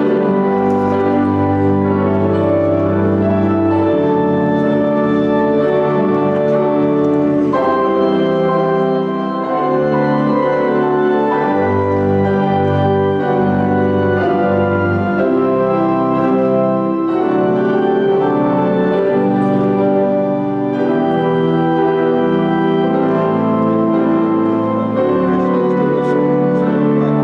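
Church pipe organ playing slow, sustained chords over held bass notes.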